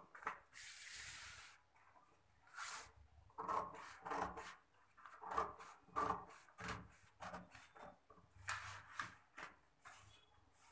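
Tailor's shears snipping through stiff brown pattern paper in an irregular run of short, crisp cuts, with a brief rustle of the paper being handled about a second in.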